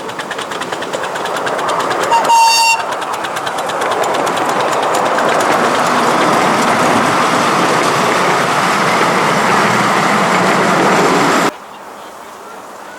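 A 7¼-inch gauge miniature train running past, its wheels ticking quickly over the rail joints, with a short toot from the locomotive about two seconds in. The running noise grows louder, holds, then cuts off suddenly near the end.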